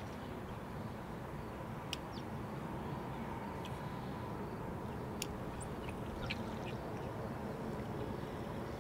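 Steady outdoor background noise with a few faint, short clicks and chirps scattered through it.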